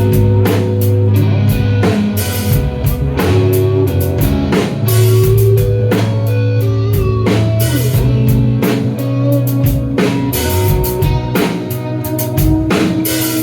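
Rock band playing live: electric guitars and bass holding sustained notes over a drum kit with steady, regular drum and cymbal hits.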